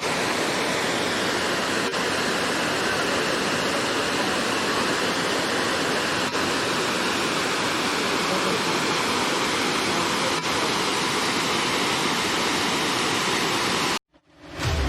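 Waterfall: a steady rush of falling water that cuts off abruptly near the end.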